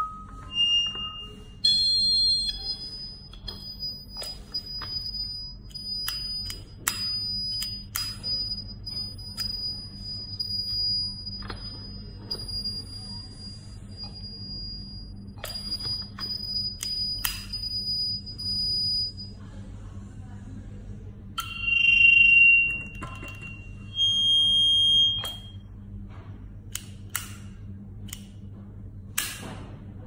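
Electronic beeps from a video intercom's indoor monitor as its buttons are pressed: short beeps about a second and two seconds in, a faint high steady tone until around 19 seconds, and two more beeps around 22 and 25 seconds. Scattered sharp clicks run throughout.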